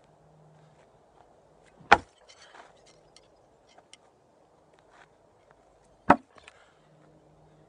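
Two thrown blades strike the wooden log target hard, one about two seconds in and one about six seconds in, each a sharp thunk followed by small wooden clicks and rattles.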